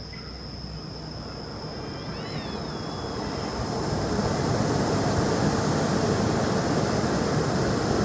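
Hand-held tezutsu bamboo-tube firework spraying its fountain of fire: a steady rushing hiss that grows louder over the first few seconds and then holds, with a thin, steady high tone above it.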